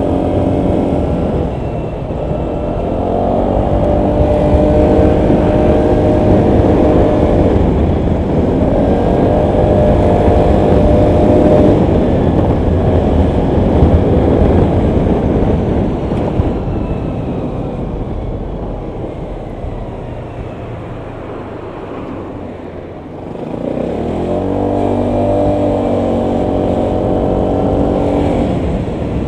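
Honda PCX 125 scooter's single-cylinder four-stroke engine under way, over a steady rumble of wind and road noise. The engine note climbs as it accelerates a few times in the first half, fades to a quieter stretch past the middle, then jumps up again as it pulls away near the end.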